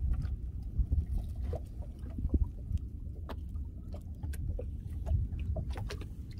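Small fishing boat at rest on the sea, with no engine running: an uneven low rumble of water and wind around the hull, and scattered light knocks and clicks from gear in the boat.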